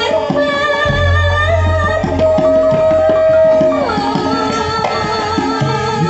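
Javanese gamelan in pelog tuning accompanying a female sinden singing into a microphone, with hand-drum (kendang) strokes and a deep low note ringing from about a second in. The voice holds one long note and then slides down to a lower pitch near the middle.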